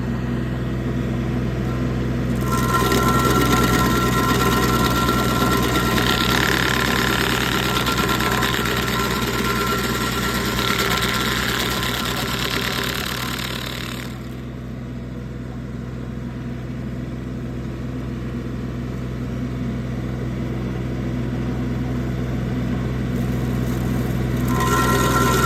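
Engine running steadily, driving a Mechmaxx stump grinder attachment. From about two seconds in until about halfway, and again near the end, a louder rushing noise with a steady high whine comes in over it as the cutter wheel spins and grinds.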